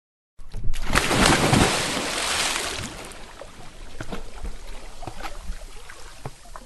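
A large splash into water about half a second in, followed by sloshing and scattered drops plopping back into the water, fading away over several seconds.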